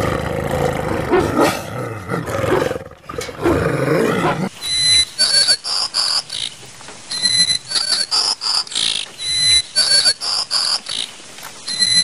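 A wolf growling for the first few seconds. Then, about four and a half seconds in, a flameback woodpecker at its nest hole gives bursts of short, high, repeated calls, some stepping up in pitch.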